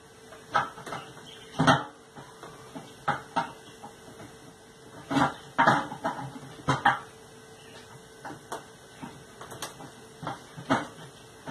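Irregular clanks and knocks of tools and disposal parts being handled while a garbage disposal is hooked up under a sink, with a louder run of knocks in the middle.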